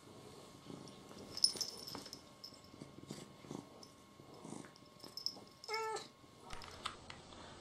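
Domestic cat giving one short meow about six seconds in, over faint purring and a few light rustles of fur and bedding.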